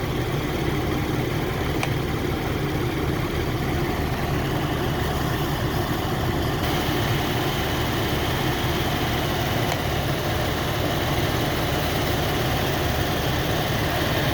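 2014 GMC Acadia's 3.6-litre V6 idling steadily with the A/C on high and the compressor engaged, while the system's low side is charged with refrigerant. A brighter hiss joins about six and a half seconds in.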